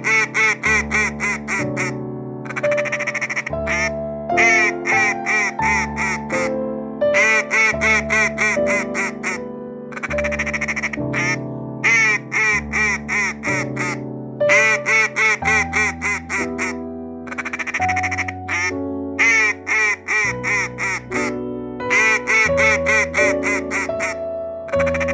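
A duck quacking in quick runs of several quacks, a run every couple of seconds, over a simple background music tune.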